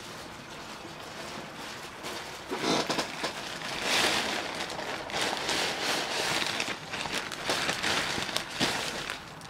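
Plastic packaging rustling and crinkling as clothes are handled and pulled from a bag. It starts about two and a half seconds in and runs on as a dense crackle of small crinkles.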